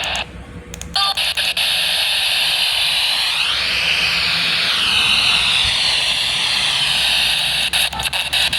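Loud hiss of radio static from a radio receiver. It cuts in with crackles about a second in, a faint whistle rises and falls through it in the middle, and it breaks up into crackles near the end.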